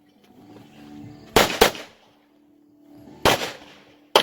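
Glock pistol shots: a quick pair about a second and a half in, then two single shots less than a second apart near the end.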